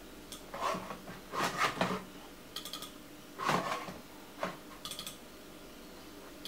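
Quick clusters of clicks from a computer mouse button, each a few clicks in rapid succession, as folders are opened on a desktop Macintosh. They are mixed with a handful of louder clattering knocks on the desk, the loudest about a second and a half and three and a half seconds in.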